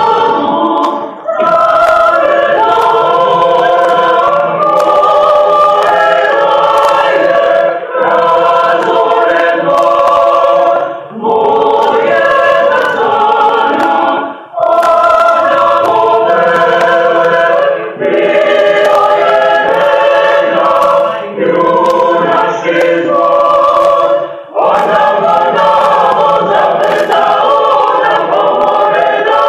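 Mixed choir of men and women singing a cappella, in sustained phrases broken by brief pauses for breath every few seconds.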